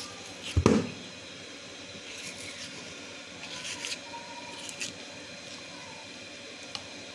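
Steel spoon scraping aloe vera gel out of a cut leaf into a bowl: soft wet scrapes and a few light clicks, with one loud knock about half a second in.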